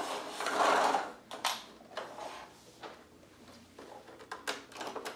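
Plastic Paw Patrol toy fire truck being handled: scattered clicks and knocks of its hard plastic parts, with a louder rush of noise in the first second.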